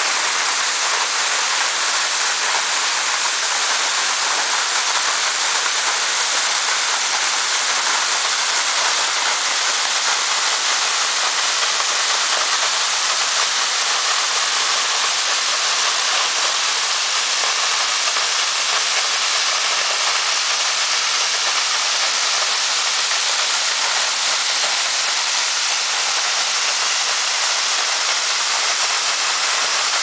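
Waterfall pouring down a rock face and splashing onto the rocks at its foot: a steady rush of falling water that never lets up.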